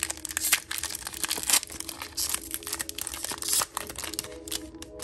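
Foil wrapper of a Pokémon booster pack being torn open and crinkled between the fingers: an irregular run of crackling rustles.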